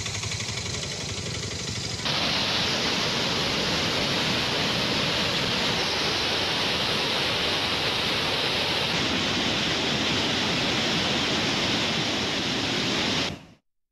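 Rainwater rushing over a tank's surplus weir: a loud, steady noise of white water that cuts in about two seconds in and stops suddenly near the end. Before it, a vehicle runs on a wet road.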